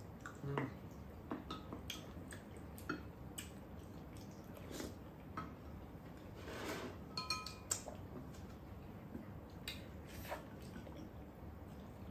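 Spoons and chopsticks clinking and scraping against ceramic rice bowls during a meal: scattered light taps throughout, with one ringing clink a little past the middle.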